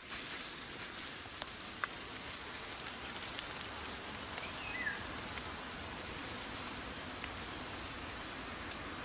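Steady rain falling on forest leaves: an even hiss with scattered faint drop ticks, and a brief high chirp about halfway through.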